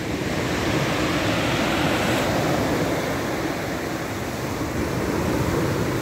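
Heavy sea surf breaking and washing up over a pebble beach: a steady rush of water that swells a little about a second in and again near the end.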